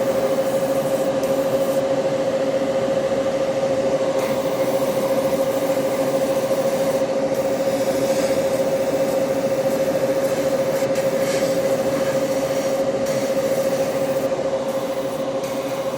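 Airbrush compressor running steadily, a constant hum with one strong steady tone and a hiss of air over it, while red paint is sprayed through the airbrush.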